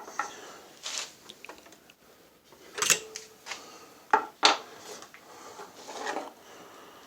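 Steel wrenches clinking and clanking as they are picked up and handled among other tools: a handful of separate metallic knocks, the clearest about three seconds in with a short ring.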